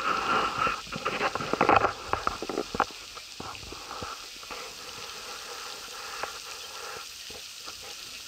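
Crackling and buffeting on the camera microphone for the first three seconds or so, then a steady hiss of spraying fountain jets with a few scattered clicks.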